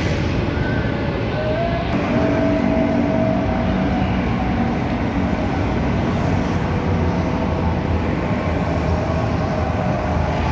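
Steady rumble of heavy road traffic, motorcycles and cars passing close by under an elevated road, with faint held tones in the first few seconds.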